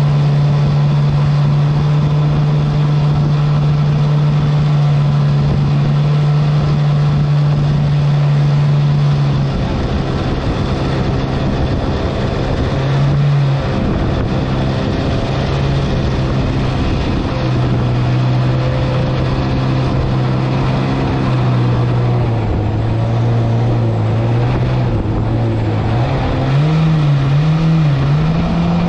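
Mini jet boat's engine running at speed over rushing water and wind. About a third of the way in its pitch drops as the boat slows, sinks lower later on, then climbs with a wobble near the end as the throttle is opened again.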